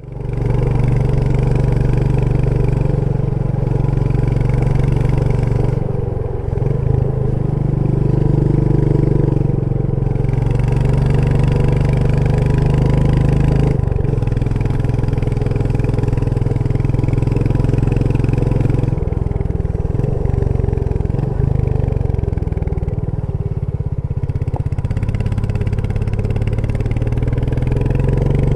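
Royal Enfield Meteor 350's single-cylinder engine pulling the bike along on the move, with a steady thumping exhaust note. The note changes several times as the throttle is eased and opened again or a gear is changed.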